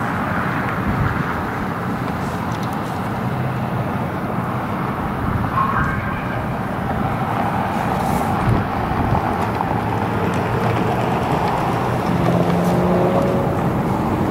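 Steady low rumble of an Amtrak GE P42 diesel locomotive running at low throttle as the train stands or creeps toward the switch, with outdoor noise mixed in.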